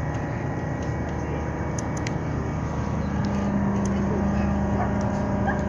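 Ship engines running with a steady low drone; a stronger steady hum joins about three seconds in.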